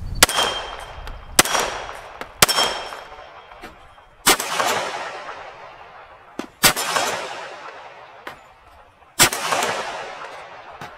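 Glock 41 MOS .45 ACP long-slide pistol fired six times in slow, aimed shots one to two and a half seconds apart. Each shot trails a long echo that fades over a second or two.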